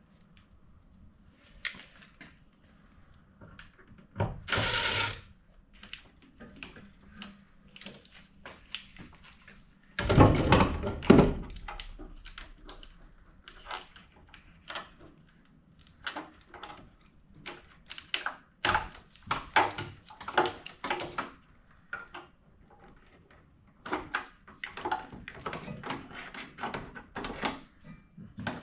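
Hands-on work disconnecting a car's front wiring harness: scattered clicks, taps and knocks of connectors, clips and tools. There is a brief loud rushing noise about four seconds in, and a heavy thunk about ten seconds in.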